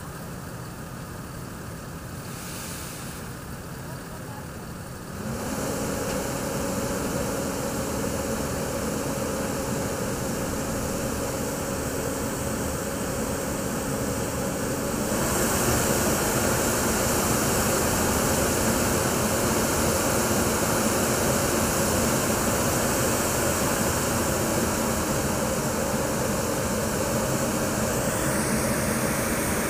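Diesel engines of a Vögele Super 2100-3i asphalt paver and a tipper truck running while the truck tips its load into the paver's hopper. The engine note steps up and gets louder about five seconds in, and again about fifteen seconds in, then holds steady.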